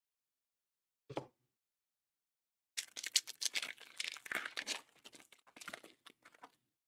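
Plastic trading card pack wrapper crinkling and tearing as it is opened by hand, a short rustle about a second in, then almost four seconds of dense crackling.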